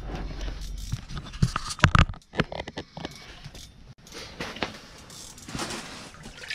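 Irregular knocks, scrapes and slushy slaps as a freshly landed whitefish flops in the slush of an ice-fishing hole and is grabbed by hand; the loudest knocks come about two seconds in.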